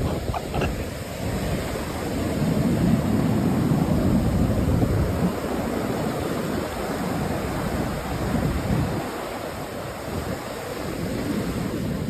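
Ocean surf breaking and washing up a sandy beach, a steady rushing that swells and eases with the waves, with wind buffeting the microphone.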